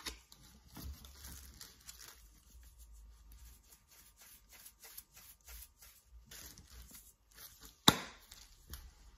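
Black pepper grinder twisted over a bowl of raw chicken: a quick run of dry clicks as the peppercorns are ground. Near the end there is a single sharp knock, the loudest sound.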